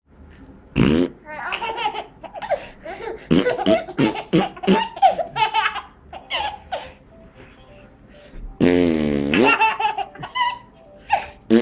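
A baby laughing in repeated fits at an adult's silly vocal noises, including one long low noise about nine seconds in whose pitch dips and then rises.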